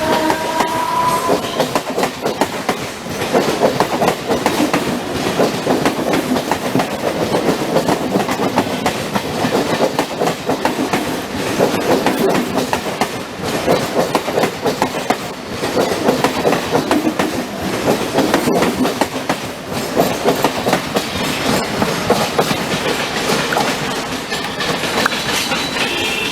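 Passenger train running on the rails, its wheels clattering rhythmically over the track in a steady, continuous rattle. In the first second or two a rising tone fades out under the clatter.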